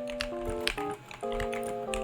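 Typing on a Rakk Ilis mechanical keyboard with Outemu Red linear switches: a few scattered keystrokes, clacking under background music with held notes.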